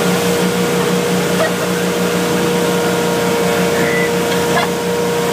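Motorboat engine running at a steady pitch at towing speed, over the rush of the wake and wind.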